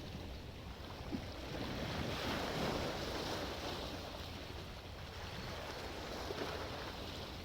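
Sea waves breaking and washing on the shore, a steady rushing that swells about two seconds in and eases off, with some wind.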